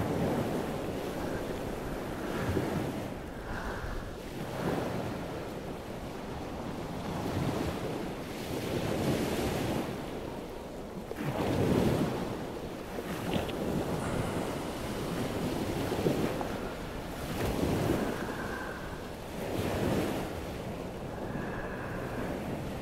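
Gusting wind blowing across a helmet-mounted microphone, swelling and easing every second or two, with the sea close by.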